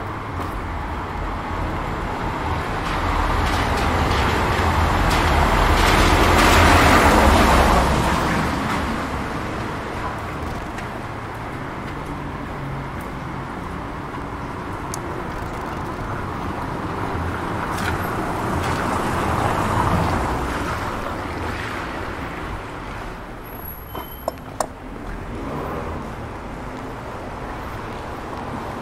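Wet-street traffic noise: a vehicle's tyre hiss swells to its loudest about seven seconds in and fades away. A smaller swell follows around twenty seconds in, and a few short clicks come near the end.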